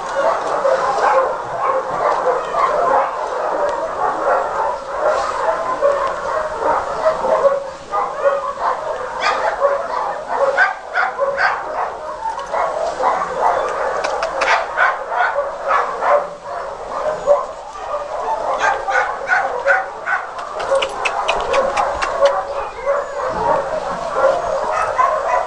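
A dog whining and yipping almost without pause, in high-pitched squeals, with runs of short sharp yips around the middle and again about two-thirds through.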